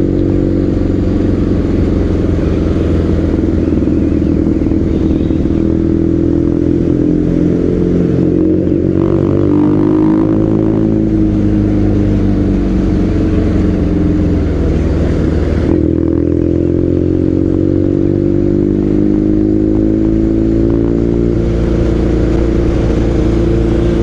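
BMW R nineT's boxer-twin engine running through an aftermarket exhaust while riding, its revs rising and easing off several times. The note is brash and raw rather than smooth, the change the new exhaust brings over the stock pipe.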